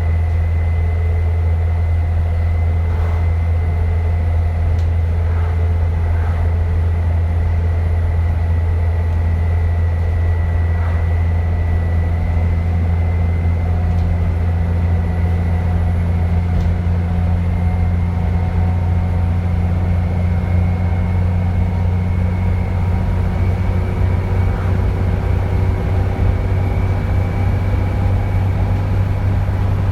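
Dennis Trident 2 double-decker bus's diesel engine running under way with a deep steady drone. Over it sounds a thin, high turbocharger whistle that edges slightly higher in pitch past the middle.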